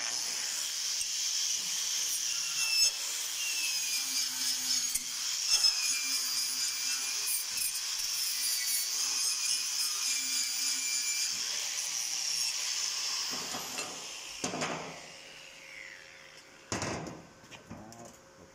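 Angle grinder running against a steel tube, cleaning slag and spatter off a fresh flux-core weld: a steady high whine that starts abruptly, runs for about thirteen seconds, then winds down. Two sharp knocks follow near the end.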